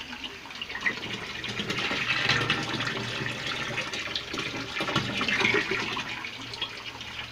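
Water pouring from a hose into the empty plastic tub of a top-loading washing machine, splashing onto the pulsator at the bottom as the tub fills.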